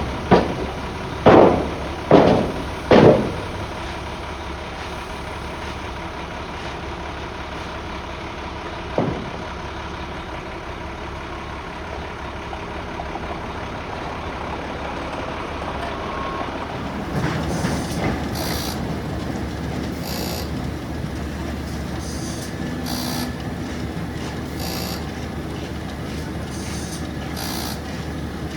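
A heavy truck engine running steadily at idle. Three loud, short, sharp blasts come in the first three seconds and a smaller one about nine seconds in. From about seventeen seconds in, the sound grows busier, with repeated short high-pitched clatters over the engine.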